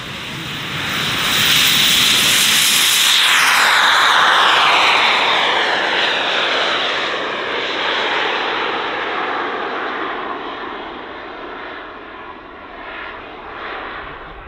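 Four JetsMunt 166 model jet turbines at full thrust on a large RC Airbus A380 taking off. The loud roar and turbine whine swell as it passes, then fall in pitch and fade as it climbs away.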